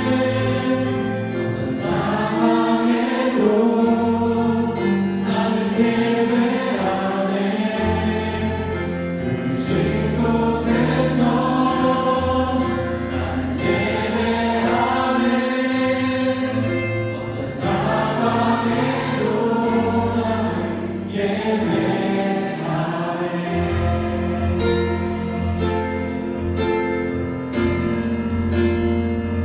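Contemporary worship music: a group of voices singing a praise song over instrumental accompaniment with long held bass notes.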